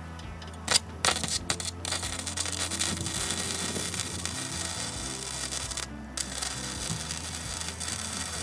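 Loud, harsh hissing from metal body-repair work on the car, starting about a second in, breaking off briefly a few times and cutting off suddenly at the end, over background music.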